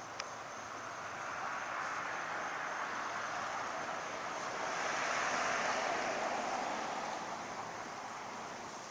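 Outdoor background rush, a steady noise that swells to a peak about five seconds in and then fades; the owl makes no call.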